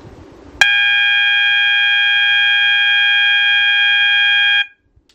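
Fire alarm horn strobe sounding one steady, loud tone for about four seconds, starting suddenly and cutting off sharply. It is the control panel's walk test signal that the Zone 2 pull station has been activated.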